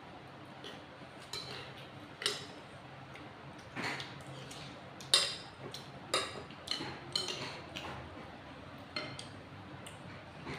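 Spoons and forks clinking and scraping on ceramic plates and bowls during a meal: a dozen or so irregular light clinks, the sharpest about five seconds in.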